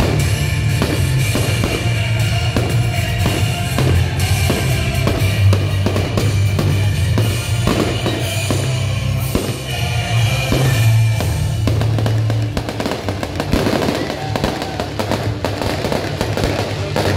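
Aerial fireworks shells bursting in quick succession, with dense crackling in the last few seconds, over music with a heavy, steady bass.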